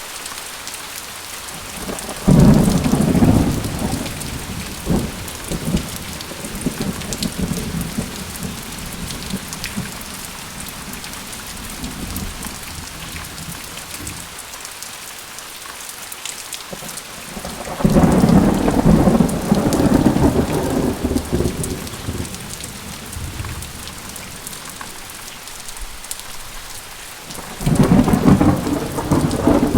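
Steady rain falling, with three peals of thunder: one about two seconds in, one past the middle and one near the end. Each comes in suddenly and rumbles away over several seconds.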